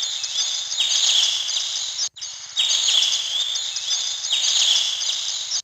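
Samsung SGH-T410 mobile phone playing a bird-song ringtone: rapid high twittering chirps over a steady hiss. The loop breaks off and starts again about two seconds in, and cuts off near the end.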